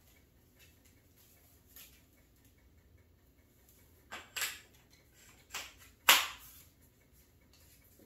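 Air rifle being handled: four sharp clicks and knocks in the second half, the loudest about six seconds in.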